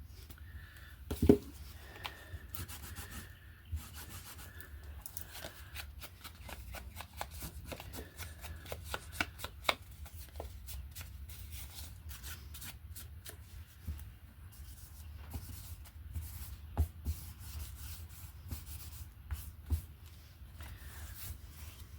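Rubbing and scratching on paper with scattered light taps, as ink is worked onto a journal page by hand, with one louder knock about a second in.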